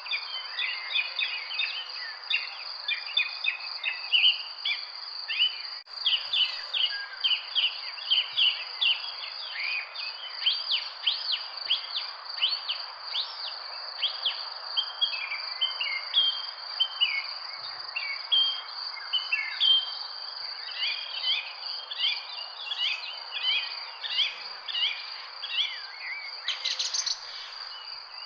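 Many small birds chirping and calling over one another, in short quick notes, over a steady high-pitched insect trill and a soft background hiss.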